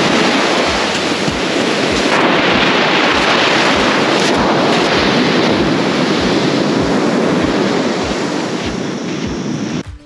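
Surf breaking and washing up a sandy beach, loud and continuous, mixed with wind buffeting the microphone. It cuts off abruptly just before the end.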